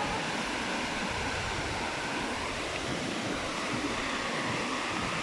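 Steady outdoor rushing noise, with an uneven low rumble underneath, typical of wind on the microphone or running water on a fellside.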